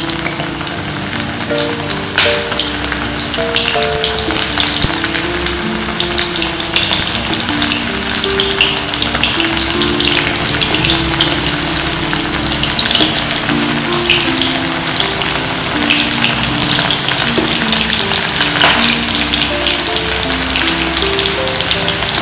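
Young jackfruit (polos) pieces deep-frying in hot oil in a wok: a steady, busy sizzle full of fine crackles as the oil bubbles around them. A light background-music melody plays underneath.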